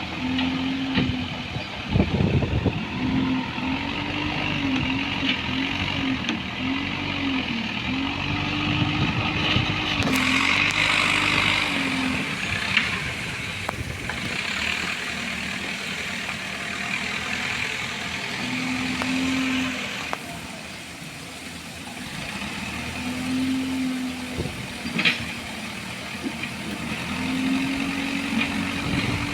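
JCB backhoe loader's diesel engine working, its pitch dipping and rising again and again as the machine works, with a few sharp knocks.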